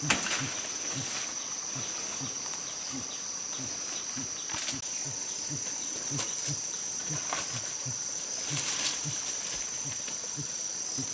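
Forest insects keep up a steady, high-pitched drone, with a low pulsing sound repeating about twice a second underneath. A few brief rustling crackles come near the start, about halfway through, and again a little later.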